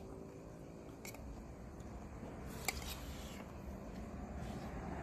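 Two light clicks of tableware over low room noise, the louder one nearly three seconds in.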